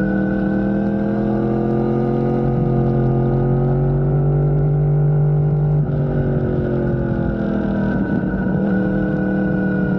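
An engine running steadily, its pitch drifting slowly up and down.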